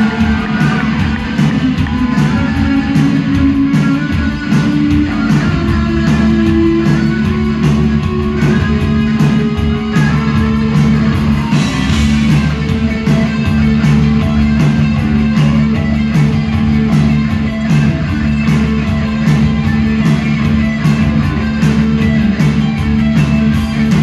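A live new wave rock band playing through a concert PA: electric guitar over bass, keyboards and drums, with a steady drum beat.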